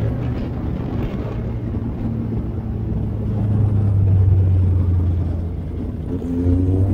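Motorcycle engine running at a steady cruising pitch as a low drone, under wind and road noise. It grows a little louder near the middle.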